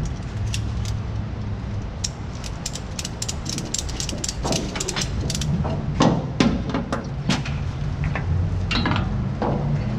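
Ratchet tie-down strap being cranked tight over bikes in a truck bed: a quick run of ratcheting clicks, then a few louder separate clacks.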